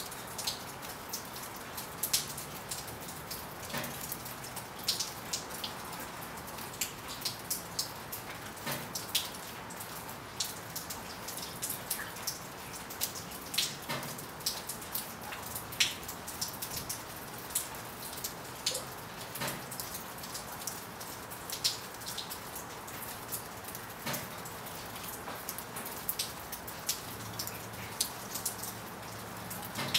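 Steady rain: a soft, even hiss with many sharp, irregular ticks of single drops striking.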